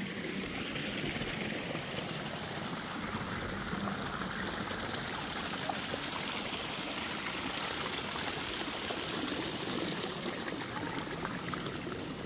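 Water running steadily, like a small stream or channel.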